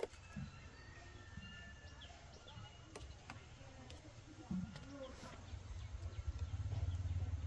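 Faint bird chirps and short calls, with a couple of sharp clicks; a low rumble builds up over the last two seconds and becomes the loudest sound.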